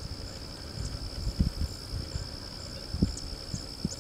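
Insects trilling steadily at a high pitch, with a second insect's short, higher chirps repeating evenly two or three times a second, over scattered low bumps and rumbles.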